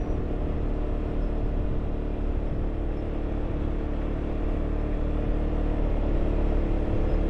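Car climbing a mountain road, heard from inside the cabin: a steady engine hum over low road rumble.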